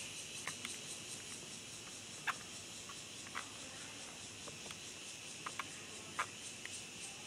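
A steady, high-pitched insect chorus with a fast pulsing beat, with a few short, sharp chirps scattered through it.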